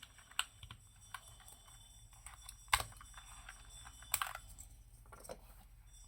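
Mad68 HE aluminium mechanical keyboard with Gateron Pink Jade Pro magnetic switches being typed on: irregular single keystrokes, with two louder clacks, one a little before halfway and one about two thirds in.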